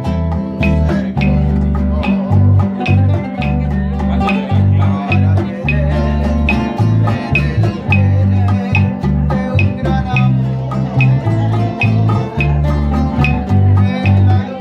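Instrumental music from a trio of plucked string instruments: guitars strumming and picking over a moving bass line, with a steady beat.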